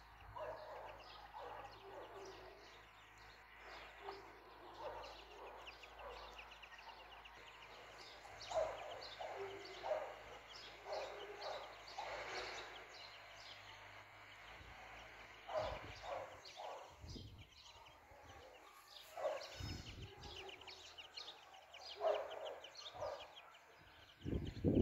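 Mother hen clucking in short, repeated low calls while her chicks peep continuously in high chirps. A few low thumps come through, the loudest near the end.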